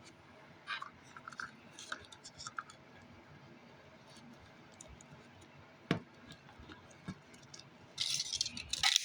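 Hands handling slime and its plastic packaging: scattered small clicks and scratchy ticks, one sharp click about six seconds in, and a louder crinkling rustle near the end.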